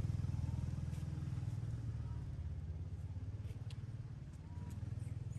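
A small engine running with a fast, even low throb, loudest at first and slowly fading.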